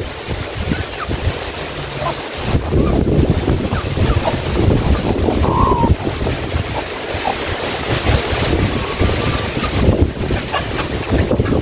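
A broom sweeping a chicken-coop floor in repeated scraping strokes, with wind buffeting the microphone.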